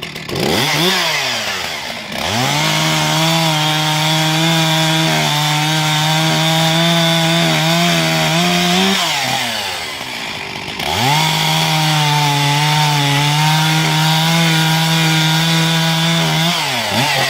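Two-stroke chainsaw bucking a downed tree: a brief blip of throttle, then two long runs at full throttle of about six or seven seconds each, dropping back toward idle between them and again near the end.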